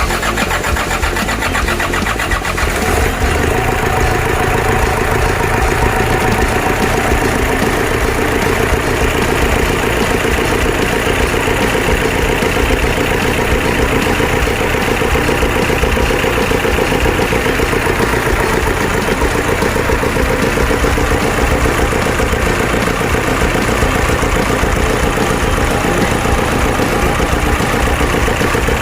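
Toyota Hilux 2KD four-cylinder common-rail diesel engine, coming up over the first few seconds and then idling steadily with an even, rapid clatter.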